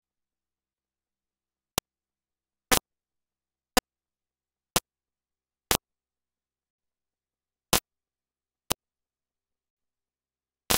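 Dead-silent audio broken by sharp, very short clicks about once a second, starting about two seconds in: digital clicks in a muted soundtrack, not game sound.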